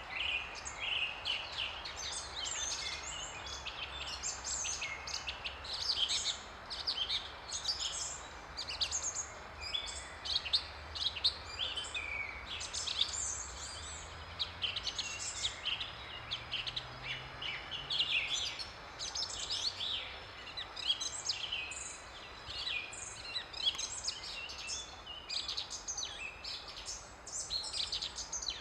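Several songbirds singing and calling at once, a dense stream of short chirps and trills, over a steady low rumble.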